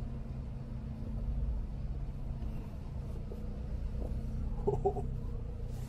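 A vehicle engine idling: a steady low hum over a low rumble.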